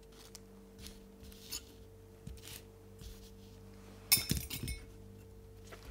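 Small metal tools and parts clinking and tapping on a workbench, light scattered clicks with a brief cluster of sharper clinks about four seconds in, over a faint steady hum.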